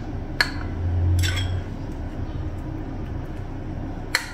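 A metal spoon clicking against dishes as pizza sauce is spooned into bread cups: a sharp click about half a second in, a softer scrape about a second in, and another sharp click near the end, over a steady low hum.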